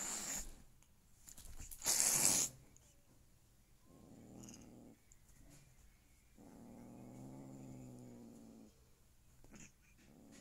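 Two domestic cats tussling: a sharp hiss at the start and a louder hiss about two seconds in, then three low, drawn-out growls, the longest about two seconds.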